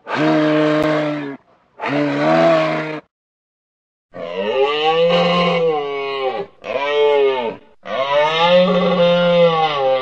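Moose calling: two short, steady-pitched calls of about a second each, then three longer, drawn-out calls that rise and fall in pitch.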